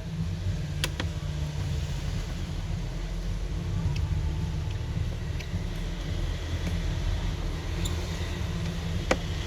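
Steady low background rumble, with a few sharp small clicks of a screwdriver and screws as screws are taken out of a phone's middle frame, one about a second in and another near the end.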